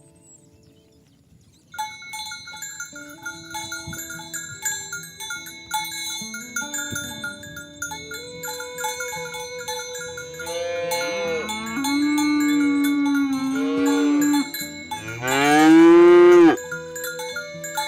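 Cowbells clanking as cattle move, with the cattle mooing several times from about halfway. The last moo, near the end, is the loudest: a long call that rises and then falls.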